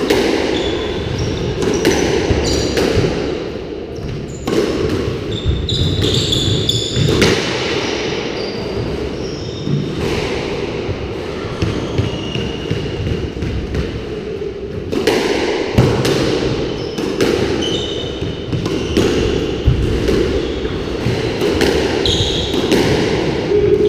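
Squash play: the ball struck by rackets and smacking off the court walls in repeated sharp hits, with short high squeaks of court shoes on the wooden floor, over a steady background hum.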